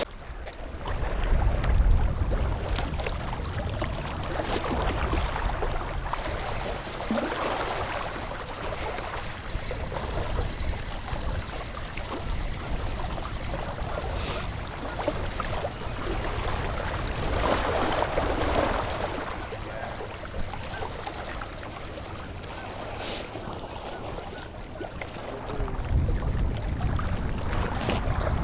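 Wind buffeting the microphone: a steady low rumble that gusts harder about two seconds in and again near the end.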